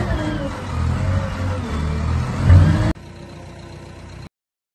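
Liebherr 556 wheel loader's diesel engine running under load, with a low rumble and a whine that rises and falls, swelling briefly about two and a half seconds in. It cuts off abruptly about three seconds in, leaving a faint hum that stops a second later.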